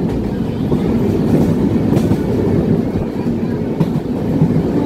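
A MEMU electric passenger train running at speed, heard from its open doorway: a loud, steady rumble of wheels on the rails, with a couple of faint clicks.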